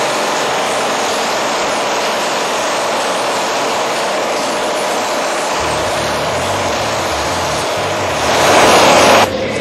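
A loud, steady engine-like drone. It swells louder about eight seconds in, then cuts off suddenly near the end, with a low pulsing underneath from about halfway.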